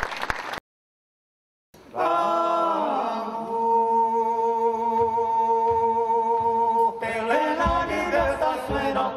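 Men's vocal group singing in close harmony, a cappella: the voices slide down into a chord and hold it. Frame drum beats come in near the end. It starts after a second of silence.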